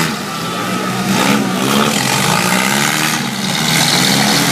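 Engines of four-cylinder demolition derby cars revving and running, their pitch rising and falling over a constant noisy wash.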